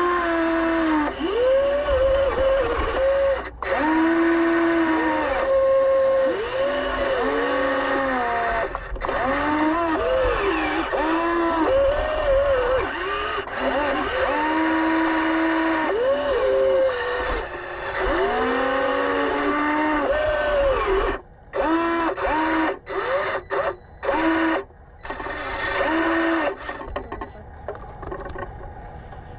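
Electric motors of a radio-controlled scale model Volvo EC160E excavator whining as the boom and bucket are worked, the pitch rising and falling in short sweeps about once a second. The sound cuts out briefly several times near the end.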